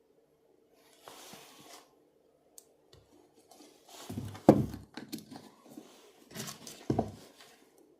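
Handling noise of tools or parts being worked on: a short rustle, then a series of knocks and clunks, the loudest about four and a half seconds in and another near seven seconds.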